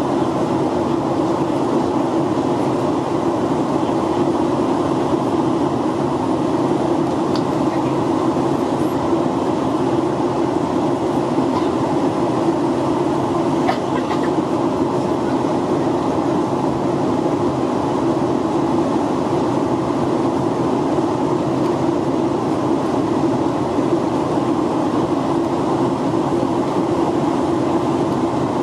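Steady in-flight cabin noise of a Boeing 737-800 heard from the front row: an unbroken rush of air and engine noise, with a few faint clicks around the middle.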